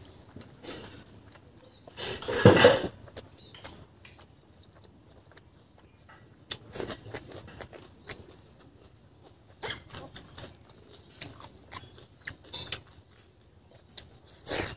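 Close-miked eating sounds: chewing and lip smacks as a man eats rice and barbecued pork, with fingers mixing rice on a banana leaf. A louder burst of chewing about two seconds in, and a loud bite near the end as a piece of pork is pulled off a skewer with the teeth.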